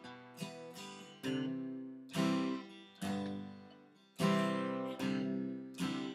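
Acoustic guitar strummed in slow chords, about one strum a second, each chord left to ring and die away before the next.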